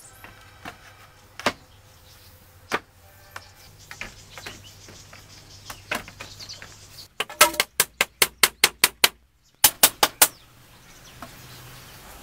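Light knocks of bamboo poles being handled, then a fast run of about ten sharp hammer strikes on bamboo at roughly five a second. After a short break come four more strikes, as a bamboo piece is fixed into a window frame.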